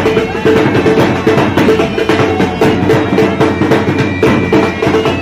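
Music with drums and percussion.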